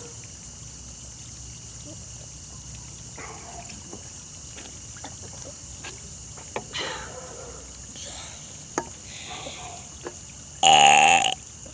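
A person's burp, one loud low-pitched belch of under a second near the end, after several seconds of only faint small sounds.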